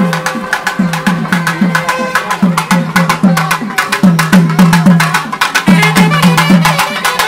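Festival drum band playing a fast, driving rhythm on double-headed barrel drums: deep strokes that drop in pitch, about four a second, under sharp stick clicks, with a reed pipe melody growing louder over the drums in the second half.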